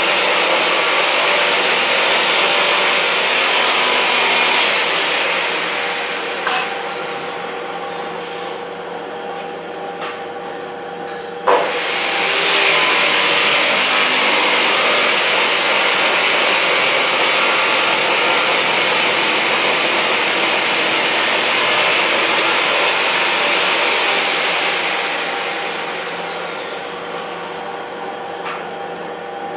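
Stick arc welding on a steel tube: a steady crackling hiss with a high whine. The arc breaks off about five seconds in, with the whine falling away. A few light taps of a chipping hammer on the weld follow, and then the arc strikes again with a sharp crack about eleven seconds in. It runs until near the end, stops the same way, and restrikes at the very end.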